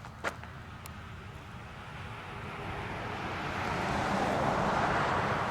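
A passing motor vehicle, its noise growing louder from about two seconds in over a steady low rumble. A single click, likely a footstep, comes just after the start.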